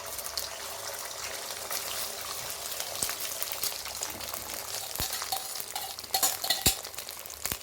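Beaten egg frying in hot oil in a kadai: a steady crackling sizzle. Three sharp clicks come in the last few seconds.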